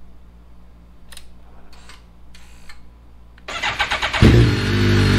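2011 BMW K1300S inline-four engine being started: after a few faint clicks, the electric starter cranks briefly about three and a half seconds in, and the engine catches and runs loudly about half a second later.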